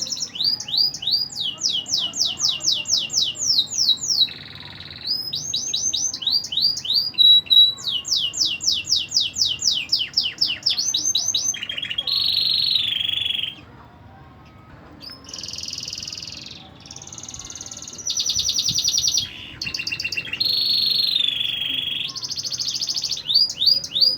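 Canary singing: long fast trills of repeated high falling notes, alternating with slower held and wavering phrases, with a short pause about midway.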